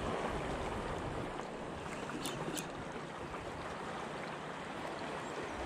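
Steady wash of sea water and wind, with two faint sharp ticks about two seconds in.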